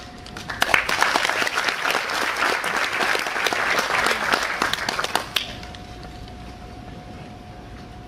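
Audience applauding for about five seconds. It starts about half a second in and stops fairly suddenly.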